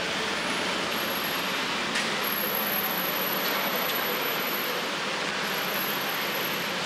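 Steady city street traffic noise, an even wash of passing vehicles with no single engine standing out, and a faint click about two seconds in.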